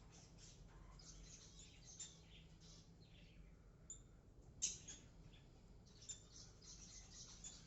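Faint, soft high-pitched chirps and scratchy sounds from a cockatiel, with one louder sharp sound a little past halfway.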